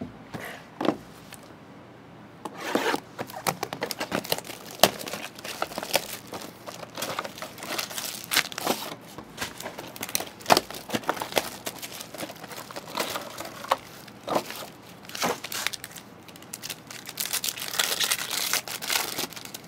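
Plastic wrapping and foil card-pack wrappers of Topps Composite trading card boxes crinkling and tearing as they are unwrapped and opened, a run of irregular sharp crackles and clicks with a denser, louder spell of crinkling near the end.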